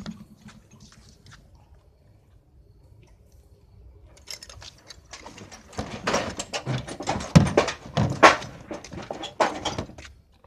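Rustling, clicking and knocking from about four seconds in as the driver climbs out of the cockpit of a Formula Student race car: race suit and harness rustling, and hands and boots knocking against the chassis, with a few louder knocks in the middle.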